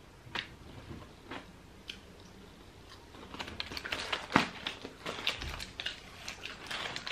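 Aluminium foil crinkling as a foil wrapping is peeled open and lifted off. There are a few light crackles at first, then a dense run of crackling from about three seconds in.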